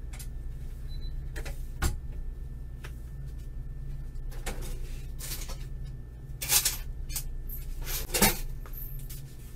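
Steady low electrical hum with scattered knocks, clicks and rustling, like objects being handled. The sharpest knock comes about two seconds in, and louder rustling knocks come twice in the second half.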